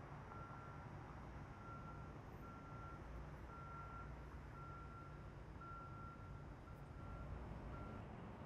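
A vehicle's reversing alarm beeping about once a second, single-tone beeps that stop near the end, over a steady low rumble of traffic and engine.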